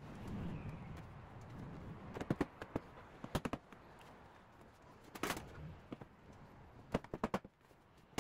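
Faint, irregular clicks and knocks of parts being handled on a car's front end, coming in small quick clusters every second or two.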